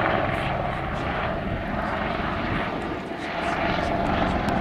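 Airbus EC120B helicopter in display flight: the steady noise of its turbine engine and rotors, getting a little louder over the last second or so.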